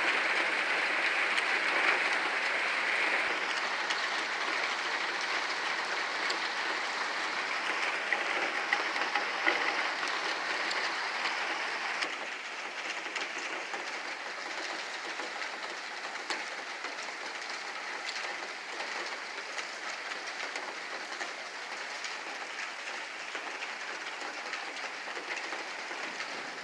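Heavy rain falling steadily, easing slightly about halfway through.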